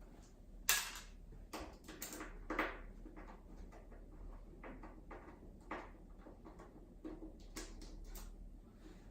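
Scattered light clicks and taps of a Torx T10 screwdriver and small screws being handled while the iMac's LCD panel screws are removed, with a sharper click about a second in.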